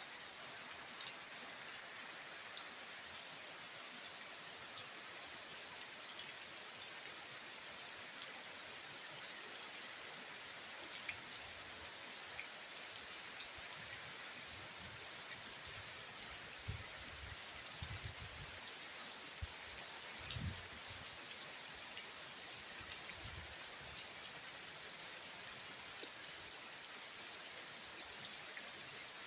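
Heavy rain falling steadily, an even hiss, with a few dull low thuds about halfway through.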